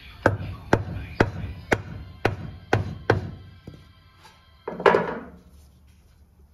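Hammer blows on a wooden block set against a truck's front axle shaft, driving the shaft into the differential housing: seven sharp strikes about two a second, then one louder, longer knock about five seconds in.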